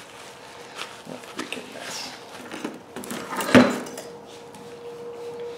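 Greasy CV axle parts being handled on a metal parts tray: scattered clicks and knocks, with one loud clunk about three and a half seconds in, as a part is set down.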